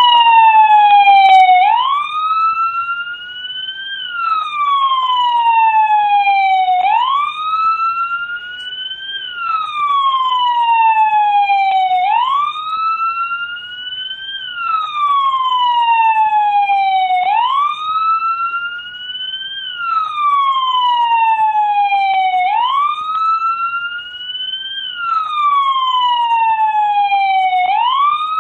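American police car siren sounding its wail: one tone gliding up and then slowly back down, repeating about every five seconds.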